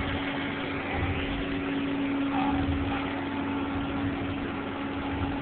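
Machine-shop machinery running with a steady hum: one held drone over a low, pulsing rumble.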